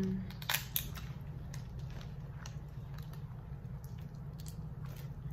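Crab being picked apart and eaten by hand: scattered small cracks, clicks and wet squishes of shell and meat, the two loudest about half a second in, over a steady low hum.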